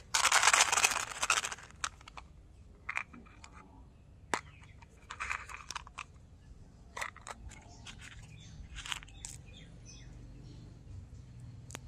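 Hands handling and opening plastic candy containers and packaging: a loud rustle in the first second and a half, then scattered sharp clicks and short rustles as the containers are handled and small white mint candies are tipped into a palm.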